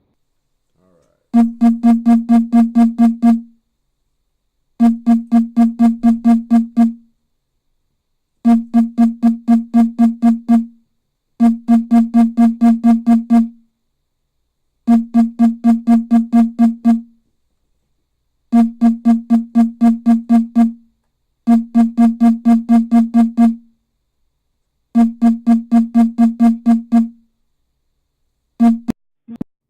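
Mobile phone ringing with an electronic ringtone: a quick run of about eight pulsing notes lasting about two seconds, repeated about eight times with short gaps, cut off near the end.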